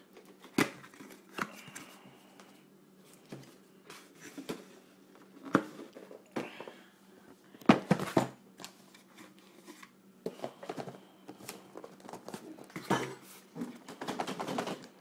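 Cardboard retail box being opened by hand: irregular rustling, scraping and tearing of cardboard and packaging, broken by sharp knocks of the box being handled, the loudest about halfway through.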